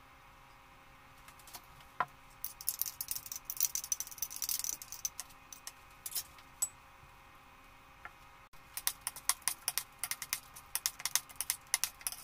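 Metal spoon scraping and clinking against dishes, with a busy stretch of scrapes from about two and a half seconds in as yogurt is spooned onto grated green apple. From about eight and a half seconds comes a quick run of clicks as the mixture is stirred in the bowl.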